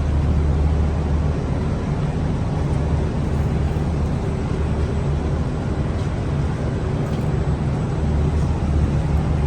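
Steady low rumble and hiss of a moving double-decker passenger train, heard from inside the carriage.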